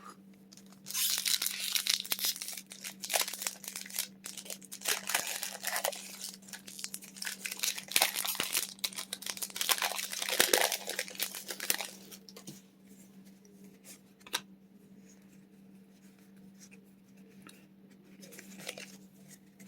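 A Pokémon card booster pack's foil wrapper being torn open and crinkled, a dense crackling that runs for about ten seconds and then dies down to soft handling with a few small clicks.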